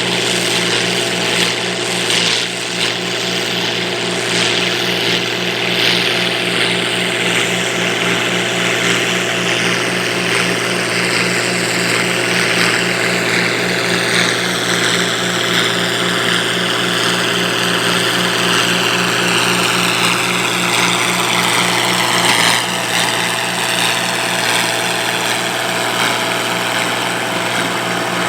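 Minneapolis-Moline G850 tractor engine running steadily under load as it pulls a New Holland 311 small square baler through the hay, the baler working along with it. The engine note stays even, with a slow sweeping shift in the higher sound through the middle as the outfit moves.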